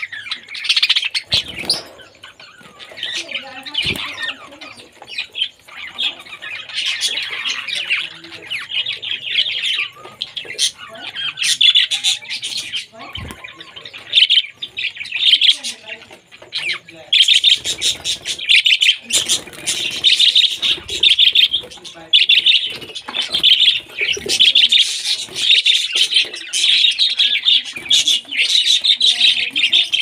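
A flock of budgerigars chattering and warbling continuously. The chatter grows denser and louder a little past halfway, and there are a few soft thumps in the first half.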